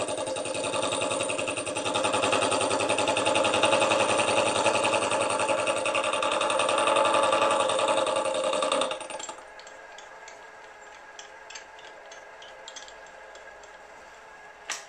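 Milling machine cutting gear teeth with a disc-type involute gear cutter in a gear blank: a loud, steady machining noise with a dense fine chatter from the cutter. About nine seconds in the cutting noise drops away suddenly, leaving quieter running with scattered light clicks and a sharp click near the end.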